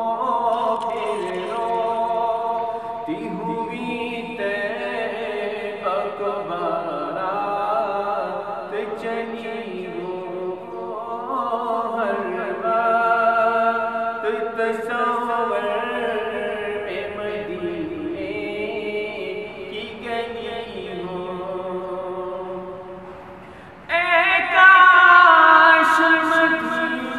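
A naat, an Islamic devotional song, sung by voices without instruments, a lead voice over layered background voices. Near the end the singing drops briefly, then a louder phrase begins.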